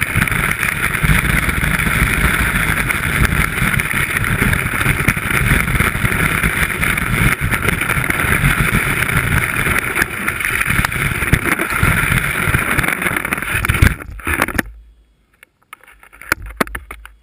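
Skis sliding and scraping over snow, heard through a camera mounted on the ski: a steady rushing noise with a low rumble. About fourteen seconds in it cuts off as the skis come to a stop, leaving a much quieter stretch with a few small knocks.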